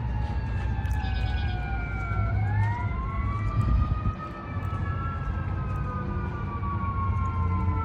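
Emergency vehicle siren wailing: its pitch slides slowly down, swings back up a little after two seconds in, then falls slowly again. A low rumble runs underneath.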